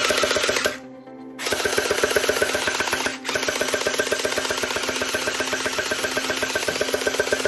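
A toy gun's fast mechanical rattle, a steady rapid-fire clatter that starts about a second and a half in, after a short loud burst of noise at the start. Background music runs beneath.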